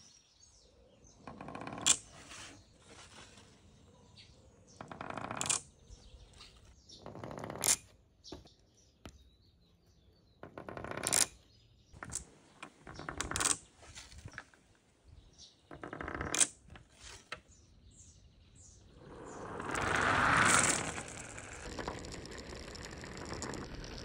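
Glass marbles rolling down white plastic rain-gutter channels in about six short runs, each ending in a sharp clack as a marble comes to rest against the row already stopped in the gutter. Near the end comes a longer, louder rush, as of many marbles rolling at once.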